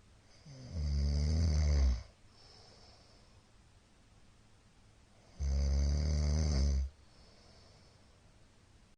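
A middle-aged man snoring loudly in his sleep: two long, low, buzzing snores about four seconds apart, each lasting over a second, with soft breathing between them.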